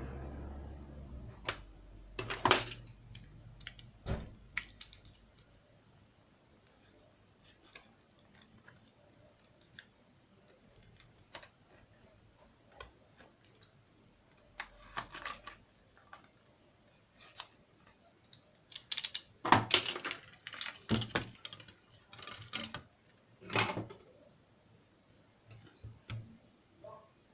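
Irregular small clicks and taps of hand tools and plastic phone parts being handled on a work surface, busiest near the end.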